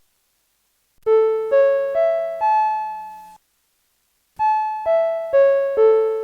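Fire-alarm broadcast panel chime: four struck notes stepping upward, a pause of about a second, then four notes stepping back down, each ringing and fading. It is the chime that opens a fire-alarm voice announcement.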